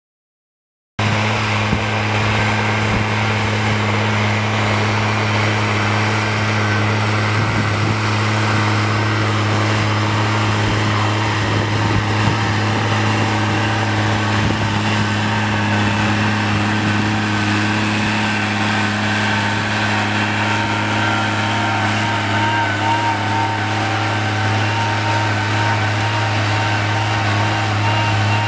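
Tractor's diesel engine running steadily under load while it pulls a disc plough through soil. The sound starts abruptly about a second in.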